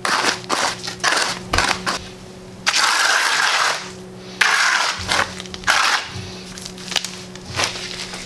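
A hand trowel scraping and spreading wet concrete over a rough concrete slab in a series of gritty strokes. Most strokes are short; a few near the middle last about a second. A steady low hum runs underneath.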